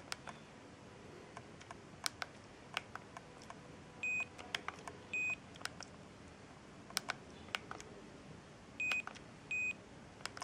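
Siemens A31 mobile phone's keypad tones: two pairs of short high beeps, among scattered clicks of its buttons being pressed while paging through the menus.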